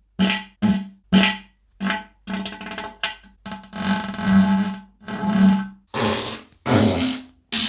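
A quick run of about ten human farts: short pitched blasts, each cut off by a brief silence. Most last a fraction of a second, and a couple drag on for about a second.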